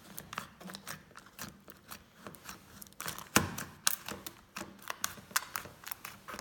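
Blue glitter slime squeezed and pressed by hand, making irregular sticky clicks and pops, the loudest about three and a half seconds in.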